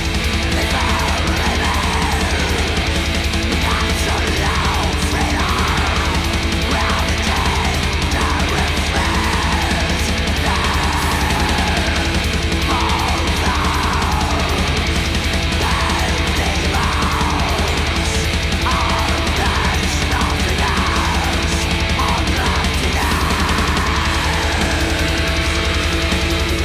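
Heavy metal recording played at a steady, loud level: distorted electric guitars over fast, dense drumming, with recurring falling melodic sweeps.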